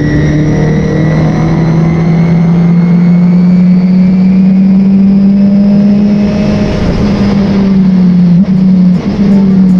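Race car engine at full throttle, its pitch climbing slowly and steadily, with two brief dips in the note near the end.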